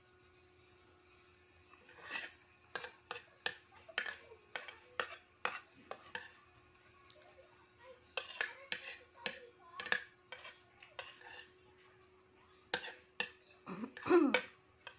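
Metal spoon clinking and scraping against a ceramic plate while scooping rice: a run of short sharp clicks starting about two seconds in, with a short pause midway. Near the end a brief wavering, voice-like call is the loudest sound.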